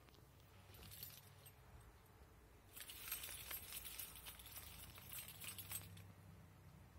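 Light metallic jingling, like keys jangling: a short burst about a second in, then a denser jingle of many small clinks lasting about three seconds.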